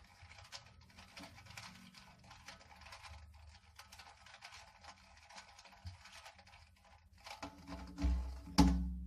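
Plastic Rubik's cube being turned quickly by hand, its layers clicking and rattling in a fast, uneven stream. Near the end come a few louder thumps from handling the cube.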